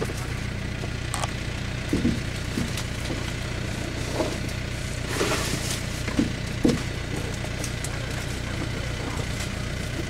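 A steady low engine hum, like a vehicle idling, with a few brief rustles and knocks as grape pickers work among the vines.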